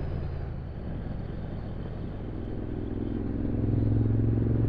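Motorcycle engine running on the road under wind noise, the engine note growing louder and steadier about two-thirds of the way through.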